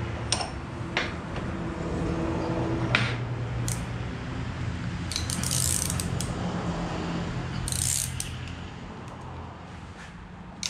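Hand-fitting a -6 AN hose-end onto braided line held in a bench vise: scattered sharp clicks of metal parts being handled and turned, then two brief scraping rasps, over a steady low hum.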